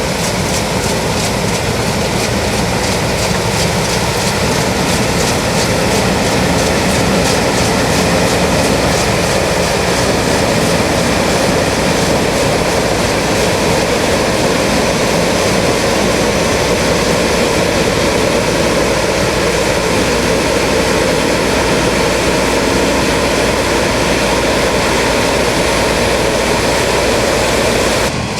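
New Holland CX8090 combine harvester running steadily: an even, loud mechanical din of engine and machinery.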